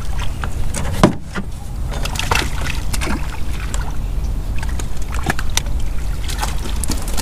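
Scattered sharp knocks and splashy clicks in a small fishing boat over a steady low rumble, the loudest knock about a second in.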